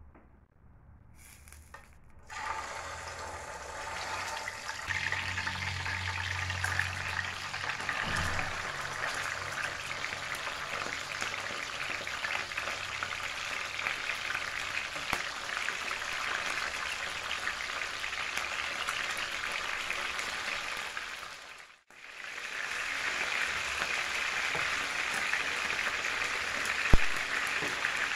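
Whole tulingan (mackerel tuna) frying in hot oil in a pan: a steady sizzle that starts about two seconds in, breaks off briefly near the end, then carries on. One sharp knock near the end.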